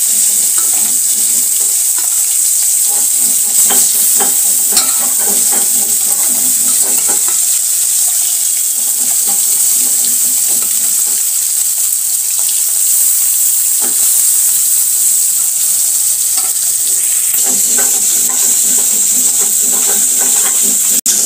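Climbing perch (koi fish) frying in hot mustard oil in an aluminium kadhai: a loud, steady sizzle, with a few sharp clicks about four seconds in.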